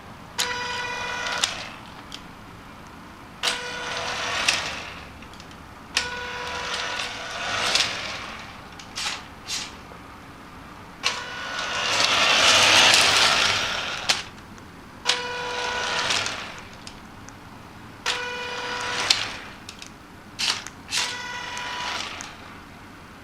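Small electric motors of a toy RC truck running in repeated short bursts of a second or two, each with a steady whine and gear noise, and one longer hissing run about halfway through.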